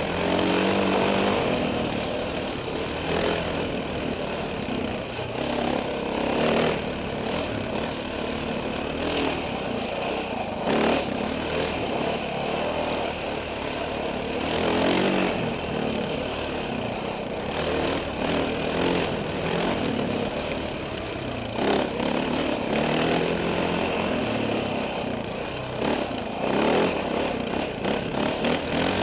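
Husaberg FE570 single-cylinder four-stroke enduro engine heard on board, its revs rising and falling again and again as the throttle is worked, with a few brief thumps along the way.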